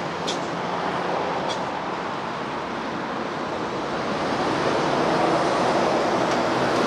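Steady noise of heavy traffic on a busy multi-lane highway, growing louder about two-thirds of the way through as large vehicles pass close by.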